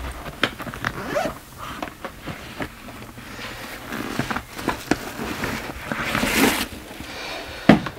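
Zipper on a wheeled tote bag being worked, with small clicks and rustle as the bag is handled. A longer zip comes about six seconds in, and a sharp knock near the end.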